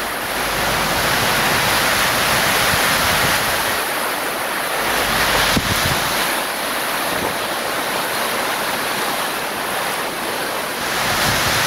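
Storm wind and heavy rain: a loud, steady rushing hiss, with wind buffeting the microphone that comes and goes.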